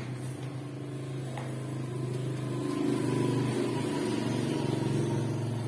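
A steady low mechanical hum, swelling a little in the middle, with a faint high whine above it.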